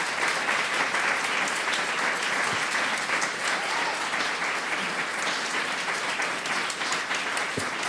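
A live audience applauding: many hands clapping in a steady, even stream.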